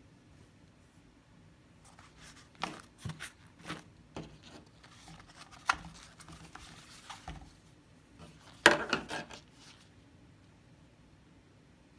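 Slime being played with by hand: irregular sticky clicks, snaps and short crackles, with the loudest burst about two-thirds of the way in.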